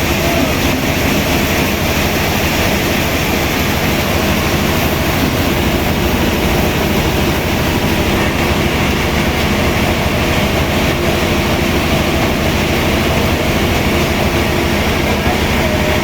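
Sawmill machinery running steadily: a loud, even mechanical noise with a low hum underneath.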